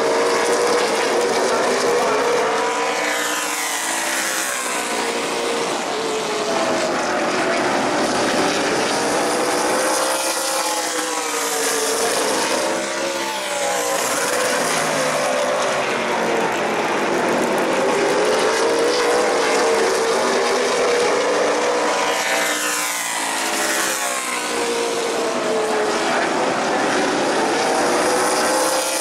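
Field of super late model stock cars racing on a short oval, their V8 engines running hard. The engine notes rise and fall in pitch again and again as the cars come past and go through the corners.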